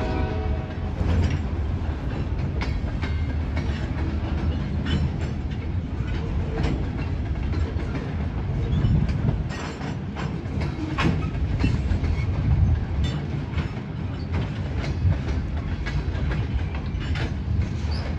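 Freight train of open-top gondola cars rolling past: a steady low rumble with irregular clanks and clicks of steel wheels over the rail joints. A train horn chord cuts off about a second in.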